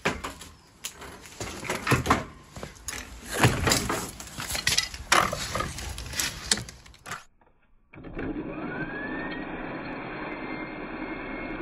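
uPVC conservatory frame pieces knocking and clattering as they are pulled out and handled. After a short drop-out about seven seconds in, a reciprocating saw runs steadily, cutting through a uPVC frame profile, with a brief rising whine as it speeds up.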